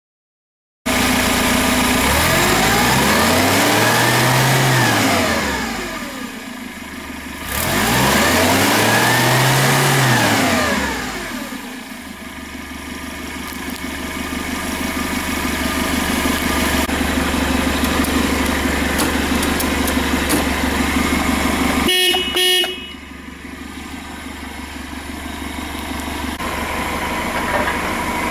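Nissan forklift engine revved twice, its pitch rising and falling each time, then running steadily. About three quarters through, two short beeps of the forklift horn.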